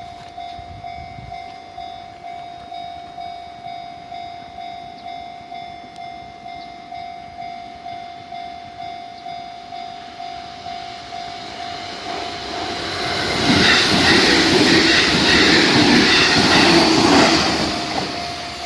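Level-crossing warning bell ringing as a steady, evenly repeating ding. About twelve seconds in, a JR Central 313 series electric train comes up and passes over the crossing. Its running noise is loudest for about four seconds and drowns out the bell, then fades near the end as the bell is heard again.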